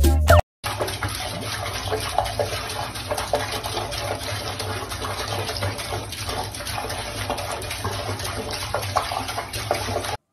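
Tap water running in a thin steady stream into a sink, with small irregular splashes.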